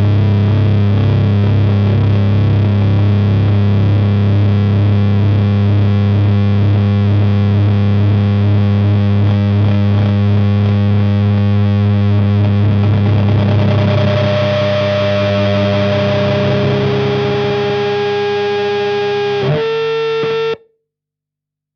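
Fender Jazzmaster with Gibson P94 pickups played through the Burden high-gain fuzz/distortion pedal and an Ampeg V4B head: a heavy, sustained low drone chord ringing out. About two thirds of the way in the tone turns brighter with steady higher tones held over it. Near the end the sound cuts off suddenly.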